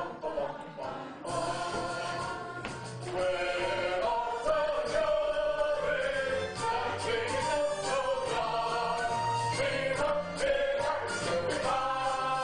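A group of voices singing a song from a stage musical with instrumental accompaniment, on long held notes. It starts thin and grows fuller about three seconds in.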